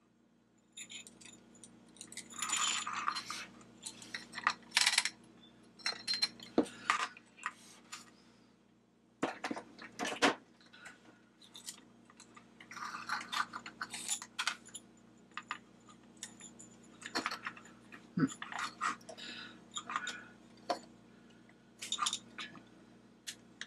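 Hands working a plastic flashlight body by hand: irregular small clicks, taps, clinks and scrapes as a 9-volt battery and its wires are pushed and jiggled into the handle.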